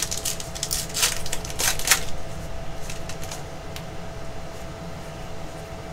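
Baseball trading cards being handled and flipped through by hand: a flurry of crackles and rustles in the first two seconds, then quieter card rustling. A steady hum runs underneath.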